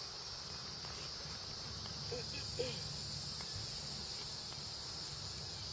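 Steady, high-pitched chorus of insects trilling without a break, with two short chirps about two seconds in.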